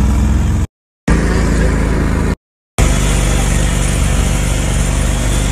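Engine of an open off-road vehicle running as it drives, with wind rumbling on the phone's microphone. The sound cuts out completely twice for a moment, a little under a second in and again about two and a half seconds in.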